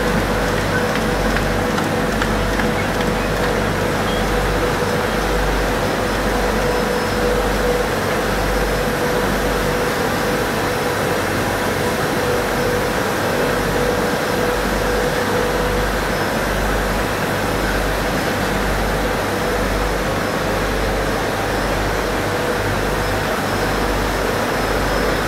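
A 1998 Heidelberg SM74-5-L five-colour sheetfed offset press with coater running: a steady mechanical din with a constant hum and a low throb about once a second.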